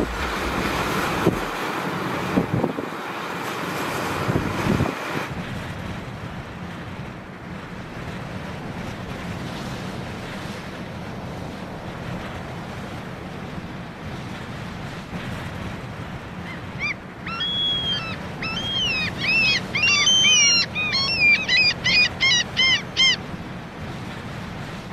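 Waves breaking and foaming over rocks for the first few seconds, then a steady rush of surf and wind. About two-thirds of the way in, a bird gives a run of loud, repeated arching calls that come quicker toward the end.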